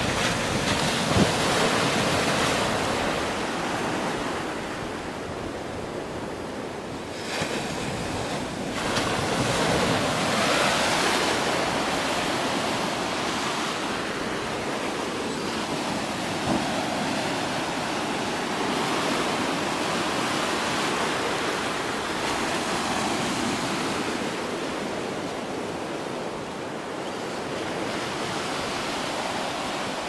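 Sea surf: waves breaking and washing up the beach in foam, the noise swelling and easing as each wave comes in, with wind buffeting the microphone.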